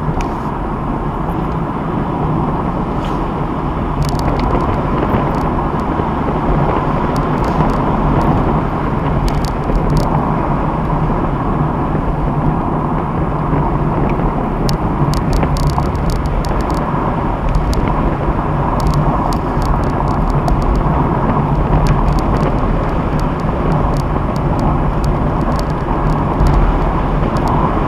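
Car interior noise while driving: a steady mix of engine and tyre noise, rising a little about four seconds in, with scattered light clicks or ticks.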